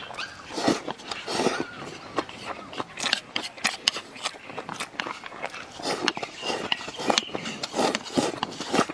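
Close-up eating sounds: chewing and lip-smacking with many quick, irregular wet clicks and crunches.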